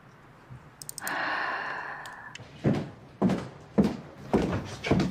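Footsteps of a person walking on a hard tiled floor, a step about every half second, starting a little over halfway through. Before them comes a hiss lasting about a second and a half.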